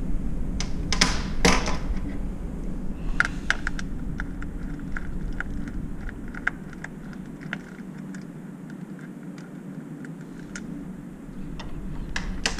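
Ratchet turning an 8 mm socket on a small bolt, clicking evenly about three to four times a second for several seconds, with a couple of sharper knocks before it and a few clicks near the end. A steady low hum runs underneath.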